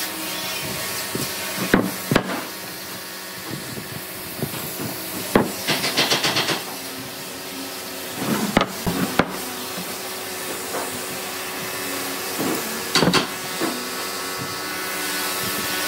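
Timber, a metal square and marking tools handled on a wooden workbench: a handful of sharp knocks as they are set down and shifted, and a short rapid rattle about six seconds in. A steady hiss runs underneath.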